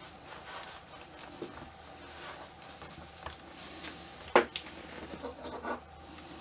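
Cloth rustling as hands adjust a doll's jacket and lace, with small clicks throughout. A sharp knock comes about four seconds in, followed by a few quicker clicks, as hard doll parts are handled.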